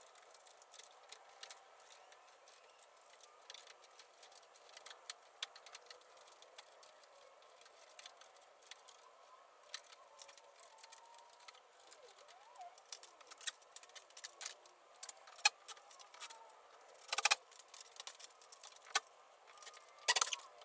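Metal cabinet suspension rail and hand tools being handled while the rail is positioned on the wall: scattered light clicks and metallic rattles. They grow denser and louder in the second half, with two short, harsher bursts near the end.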